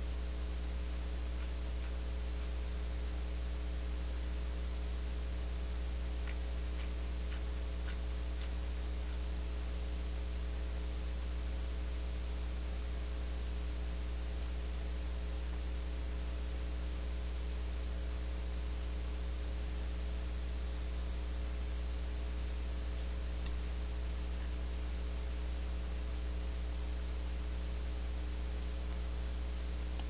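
Steady electrical mains hum with a faint hiss. A few faint ticks come about six to eight seconds in, and one more about two-thirds of the way through.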